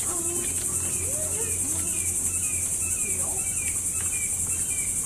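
Steady high-pitched chorus of insects such as crickets, unbroken and even, with faint short chirps repeating beneath it.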